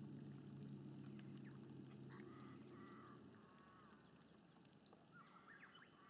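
Quiet outdoor ambience: a low, steady engine hum fades out about halfway through. A bird gives a run of short repeated calls about two seconds in and again near the end.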